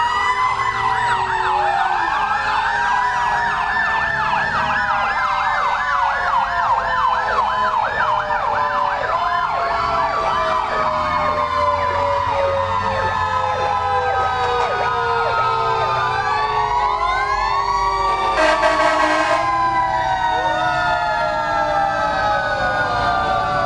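Several fire trucks' sirens sounding at once. A fast warbling yelp runs through the first half, over long wailing tones that slowly fall in pitch. A loud horn blast lasting about a second comes about two-thirds of the way in.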